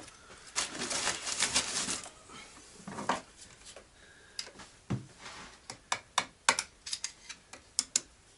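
Loose metal tools clattering as they are rummaged through, then a hand tool clicking and scraping against the steel C-clip on the fifth-gear shaft of a five-speed manual gearbox as the clip is worked off. The clicks come as a run of sharp metallic ticks, a couple a second, through the second half.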